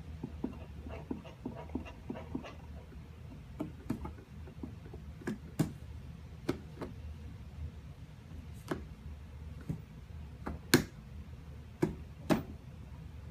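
Scattered short plastic clicks and taps from a toddler handling the handlebars of a plastic ride-on toy truck, a few sharper and louder clicks in the second half, over a low steady hum.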